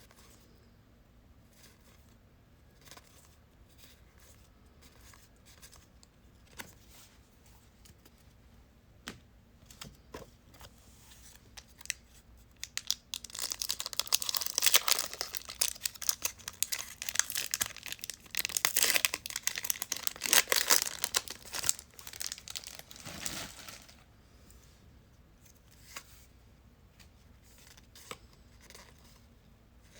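Trading card pack wrapper being torn open and crinkled, with a loud stretch of tearing and crinkling lasting about ten seconds in the middle. Before and after it there are faint scattered clicks.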